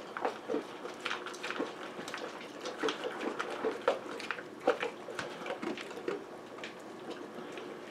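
A St. Bernard and a Siamese kitten eating from the same plastic bowl: irregular crunching and chewing, with small clicks of food against the bowl, several a second.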